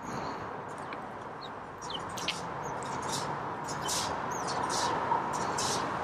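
A flock of house sparrows chirping: many short, high chirps overlapping, growing busier about two seconds in, over a steady background noise.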